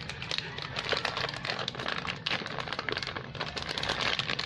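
Plastic crinkling and rustling as it is handled: a dense, continuous run of small crackles.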